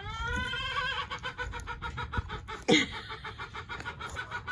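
Hungry chickens calling for food: a drawn-out rising call, then a quick string of clucks, with one loud short squawk that drops sharply in pitch about two-thirds of the way through.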